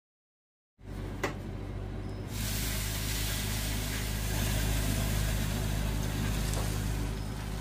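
Sherbet syrup sizzling as it is poured over a tray of hot, freshly baked baklava: a steady hiss that begins about two seconds in, over a low steady hum.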